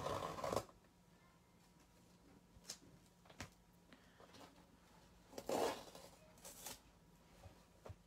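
Masking tape being peeled off a painted canvas and handled: a short tearing rasp at the start, a couple of small clicks, then two more brief peeling rasps about five and a half and six and a half seconds in. Faint.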